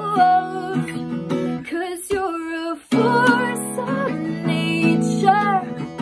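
Acoustic guitar strummed in a slow rhythm while a woman sings a held, wavering melody over it. The guitar stops for about a second around two seconds in, then comes back with a fresh strum.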